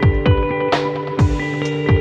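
Background music: an electronic track with a deep, regular kick drum, sharp snare-like hits and sustained chords.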